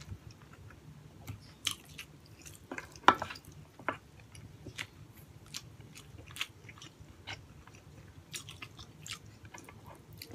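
A person chewing braised pork hock (paksiw na pata) with rice, with irregular wet clicks and smacks of the mouth, a few louder than the rest.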